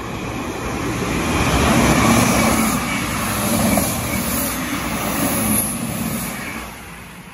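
A Class 158 and two Class 159 diesel multiple units passing close by: their underfloor diesel engines hum steadily over the rush of wheels on rail. The sound swells to its loudest about two seconds in and dies away near the end as the last car goes by.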